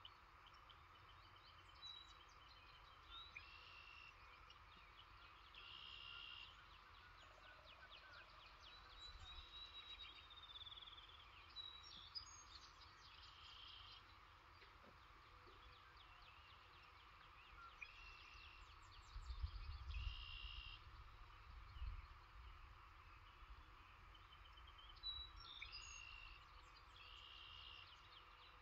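Faint outdoor birdsong: one bird repeats a short song phrase about every six or seven seconds, with quick trills from other birds in between, over a faint steady background hum. A low rumble comes in about two-thirds of the way through.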